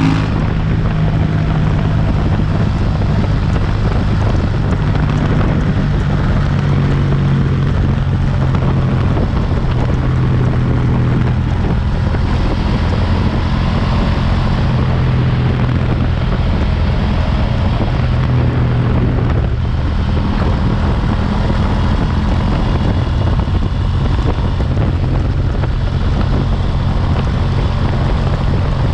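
Engine of a stock-exhaust KTM 790 Duke, a parallel-twin motorcycle, running at fairly steady road speed under the rider, with small rises and falls in revs, and wind rushing over the microphone throughout.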